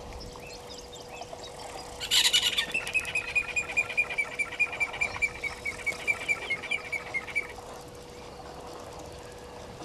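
A bird calling: a loud opening note about two seconds in, then a fast, even series of short notes, about five a second, at one pitch that drops slightly, lasting about five seconds. A faint steady hum runs underneath.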